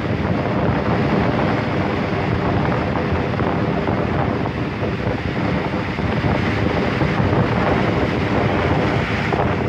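Sea waves washing and breaking over a rocky shoreline in a steady rush, with wind buffeting the microphone.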